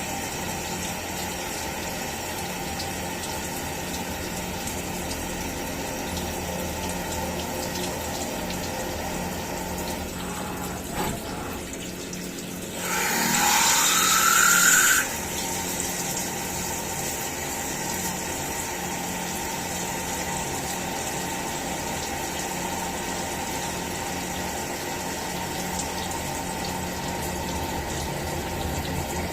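CNC milling machine running with coolant splashing steadily over the work. About halfway through comes a louder hiss with a faint rising tone that lasts about two seconds and cuts off suddenly.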